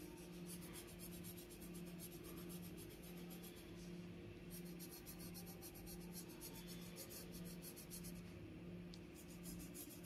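Pencil shading on paper: a faint, continuous scratching of the pencil lead, over a steady low hum.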